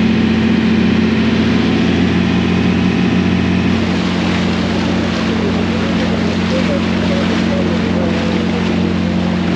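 A fishing boat's engine running steadily under way, with water rushing and splashing along the hull. The rush of water grows louder about four seconds in.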